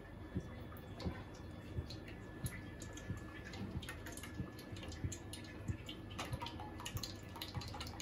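Cooking oil poured in a thin stream from a plastic bottle into a steel kadai, giving faint, irregular small splashes and drips.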